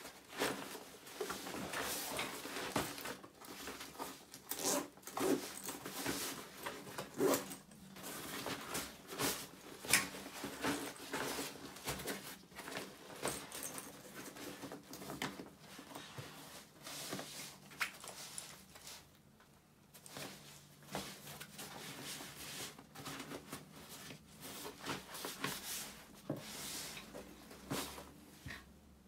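Backpack being handled: fabric rustling and brushing, with zippers being worked and light clicks of hardware, in irregular bursts. It goes quieter for a moment about two-thirds of the way through.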